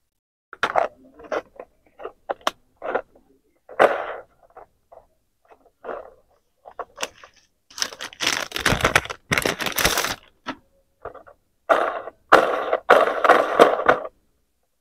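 Hard plastic toys handled: a string of short clicks and knocks, then longer rustling and scraping about eight seconds in and again near the end.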